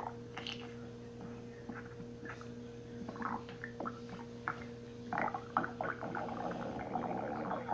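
Stomach gurgling and growling: irregular short squelchy gurgles that become busier and more continuous about five seconds in, over a steady low hum.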